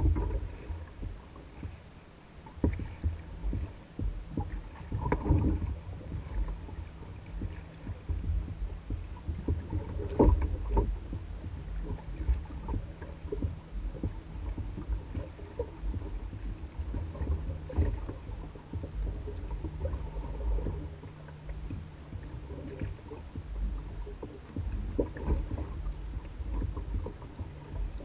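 Water lapping and sloshing against the hull of an Old Town Guide 119 canoe bobbing on a lake, with frequent small knocks and bumps against the hull. A faint low rumble runs underneath.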